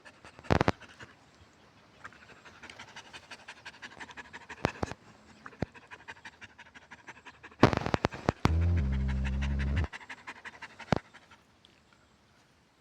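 A dog panting in quick, even breaths, the panting of a tired dog, with a few sharp knocks. About two-thirds of the way through, a loud low buzz lasts just over a second.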